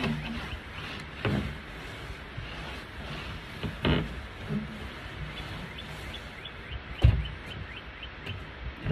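Broom work on a porch floor: a few scattered knocks and thumps, the loudest about seven seconds in. Small birds chirp over and over in the background.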